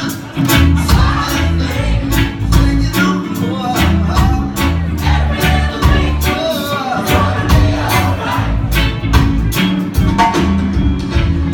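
Reggae band playing live, with a deep bass line under a steady drum beat.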